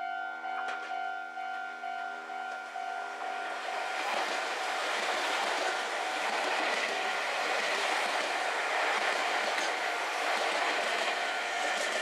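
Level crossing warning bell ringing about twice a second. About four seconds in, a Meitetsu 1000 series Panorama Super electric train passes close by, its wheels clacking over the rail joints and its noise drowning out the bell.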